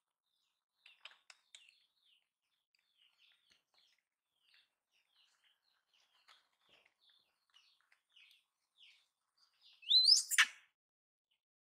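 Short, faint, high chirping calls, then one loud squeal about ten seconds in that rises quickly in pitch.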